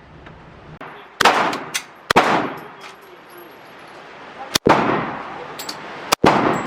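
Gunshots from a firearm at an indoor range: four shots at uneven gaps of about one to two and a half seconds, each followed by a decaying echo.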